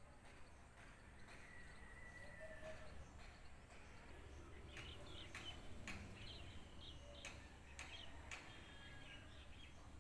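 Faint outdoor garden ambience with distant birds chirping: one thin whistle early on, then short high chirps and a few sharp clicks in the second half.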